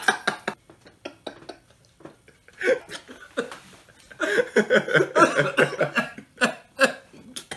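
Two men laughing hard. It starts as short breathy gasps and breaks into loud, repeated bursts of laughter about halfway through.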